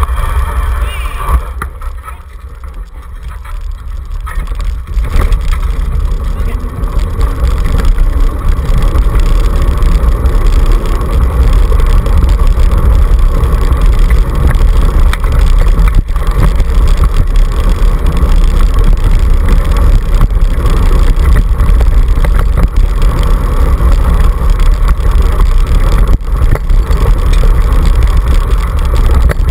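Dog scooter rolling fast over a gravel and dirt forest track: a steady loud rumble from the tyres on the track, mixed with wind buffeting the handlebar-mounted camera's microphone. It drops quieter for a few seconds about two seconds in, then runs loud and steady again.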